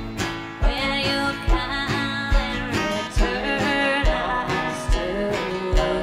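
Acoustic guitar strummed and banjo picked together in a folk song, with a low thump on each beat, a little under a second apart.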